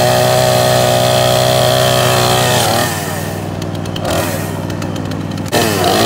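Craftsman two-stroke gas chainsaw running at high revs. About halfway through, its speed drops and wavers as the chain bites into a fallen branch, then it revs back up near the end.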